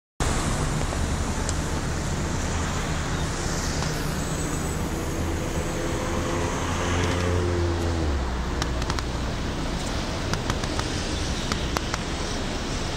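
Street traffic noise with a large diesel engine running low and steady, like the coach bus idling at the curb. A higher engine hum swells in about five seconds in and drops away near eight seconds, followed by a few sharp clicks.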